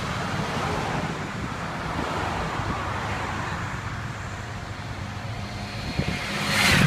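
Motorcade cars driving past on the road: a steady traffic rumble, with one vehicle swelling louder as it passes close near the end.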